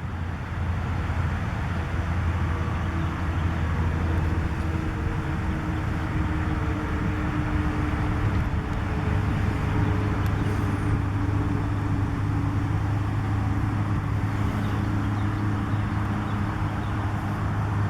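A motor running steadily with a low hum, like a vehicle driving.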